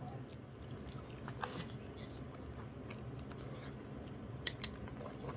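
Someone chewing a mouthful of grilled pig's feet, with small wet, squishy chewing sounds. About four and a half seconds in come two sharp clicks in quick succession.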